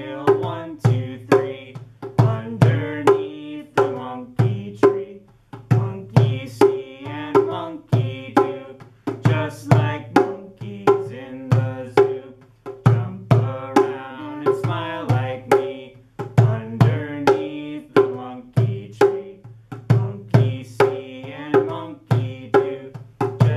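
Djembe played by hand in a steady beat, about two to three strokes a second, with singing over it that drops out for short stretches.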